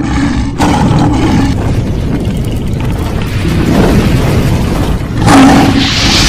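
Cinematic intro sound design: a dense fire-and-explosion rumble over a steady low drone, with a heavier boom about five seconds in followed by a bright whoosh.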